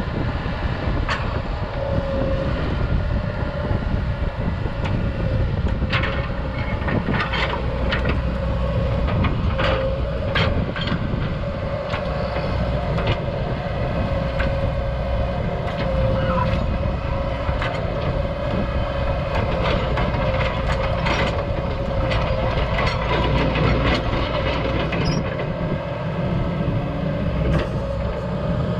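Cat E120B hydraulic excavator running, a steady engine rumble with a constant whine, broken by scattered metallic clanks and knocks.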